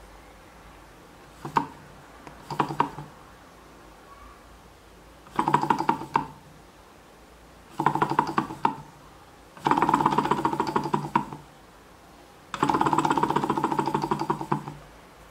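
Homemade tin-can Stirling engine, with a balloon-diaphragm power piston and can-lid flywheels, starting up on its first test run. A couple of short knocks, then four spells of rapid rattling clatter with a buzz, each one to two seconds long, the last one the longest.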